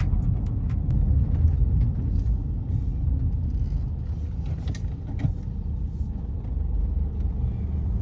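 A car driving along a road: a steady low rumble of engine and road noise, with a few faint ticks.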